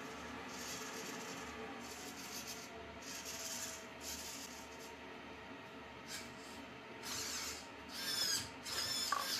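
Small RC servo driving the clutch arm of a scale model car, in about eight short whirring bursts as it moves back and forth. The last two, near the end, are the loudest and carry a whine that rises and falls.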